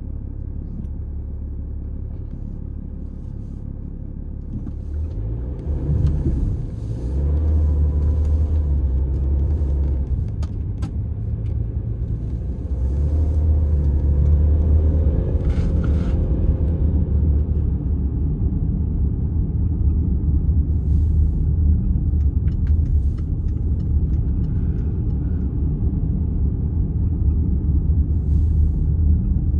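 Diesel all-wheel-drive vehicle driving, a steady low engine and road rumble. It grows louder with rising engine pitch as it speeds up about six seconds in and again around thirteen seconds.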